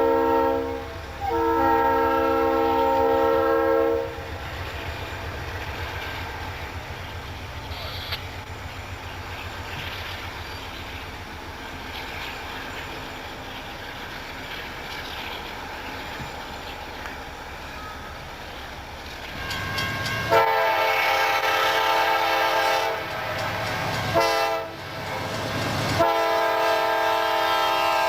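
Diesel locomotive's multi-note air horn sounding two long blasts, then a steady low rumble of a train running by. The horn comes back for several more blasts near the end, the last one long.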